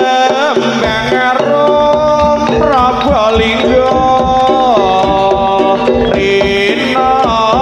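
Live Javanese jaranan gamelan music played loudly through a PA: hand drums beat a busy rhythm under a high melody line that holds notes and bends between them.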